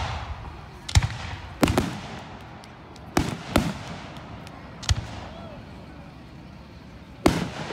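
Aerial firework shells bursting: about six sharp booms spaced irregularly, two of them in quick pairs, each trailing off in a short rumbling echo.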